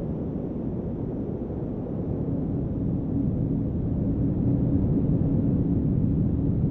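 Steady low wind blowing, with a faint moaning tone running through it; it grows a little louder from about halfway through.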